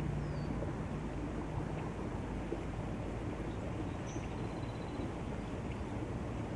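Outdoor ambience: steady wind rumble on the microphone with a low hum that stops about two seconds in, and a few faint high bird chirps, including a quick short trill past the middle.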